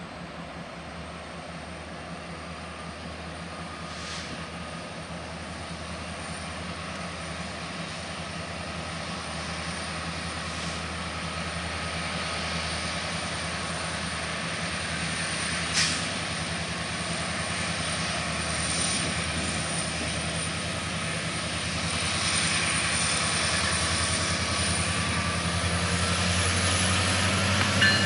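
Union Pacific diesel freight locomotives approaching, their engine drone growing steadily louder with a high whine over it. A single sharp click comes about sixteen seconds in.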